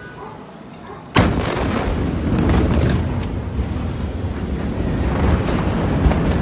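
Beirut port explosion: a sudden blast about a second in, followed by a long rolling rumble with scattered crackles.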